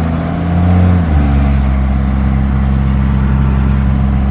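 Cummins 5.9-litre inline-six turbo diesel of a 1992 Dodge D250 running, heard from inside the cab; its note changes about a second in, then holds steady.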